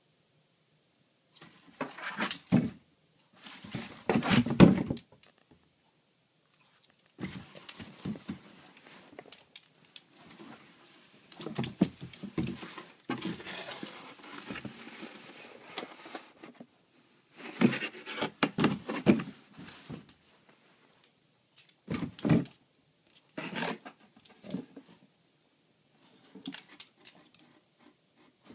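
A Boston terrier playing among cardboard boxes: irregular bursts of cardboard scraping and rustling with sharp thuds, broken by short quiet pauses.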